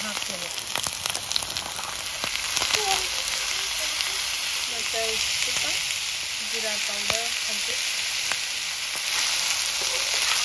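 Mushroom stir-fry sizzling steadily in a hot oiled frying pan, with a spatula clicking against the pan now and then as it is stirred.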